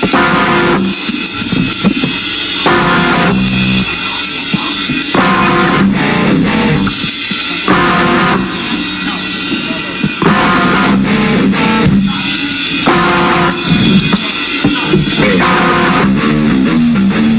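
Live rock band playing an instrumental passage: drum kit, guitar and bass.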